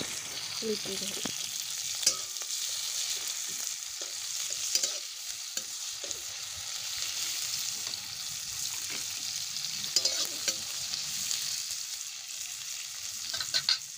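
Sliced onions and chopped garlic frying in hot oil in a metal kadai, a steady sizzle, stirred with a metal spatula that clicks and scrapes against the pan now and then, with a few quick clicks near the end.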